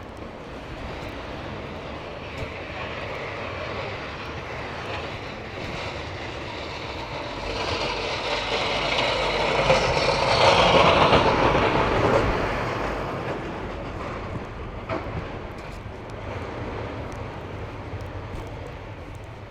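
A vehicle passing by: its noise builds, peaks about ten seconds in, then fades away, over a steady background of traffic and wind.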